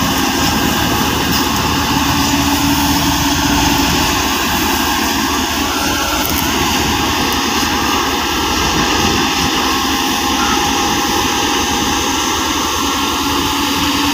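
Tractor-powered wheat thresher running at working speed: a loud, steady mechanical drone with a steady whine layered over it.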